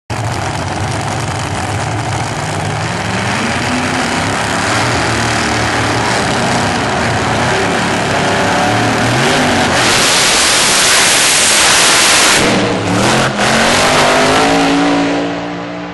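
Supercharged 1955 Chevrolet doorslammer drag car at full throttle: engine note rising in pitch several times as it revs and accelerates down the strip, loudest about two-thirds of the way in, then fading near the end as the cars pull away.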